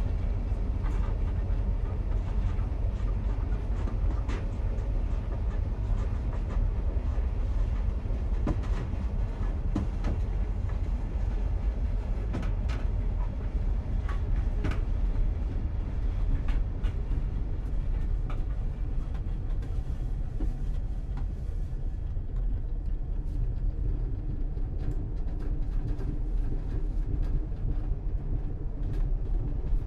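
Interior of a moving commuter train: a steady low rumble of wheels on track, with scattered clicks and rattles from the carriage.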